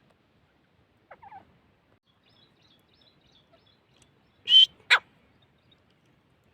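Gray francolin calling: a soft two-part falling call about a second in, then two loud, harsh notes in quick succession about four and a half seconds in. Faint high chirps of small birds sound between them.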